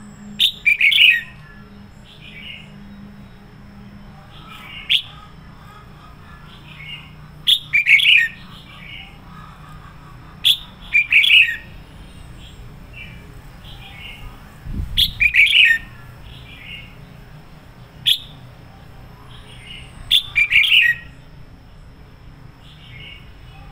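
Red-whiskered bulbul singing: five loud, short warbling phrases a few seconds apart, with softer notes and a couple of single sharp notes between them.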